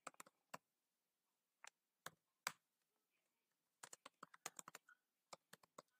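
Faint computer keyboard typing: a few scattered single keystrokes, then a quicker run of keystrokes over the last two seconds.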